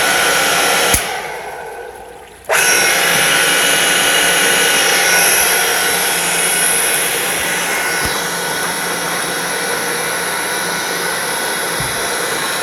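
Sanso Electric PHP-4043BHZ7 three-phase hot-water circulation pump (200 V, 3450 rpm) running with a steady motor hum and whine. About a second in it is switched off with a click and starts winding down, then it cuts back in abruptly and runs on steadily. The motor has a slight abnormal noise, which the owner only suspects.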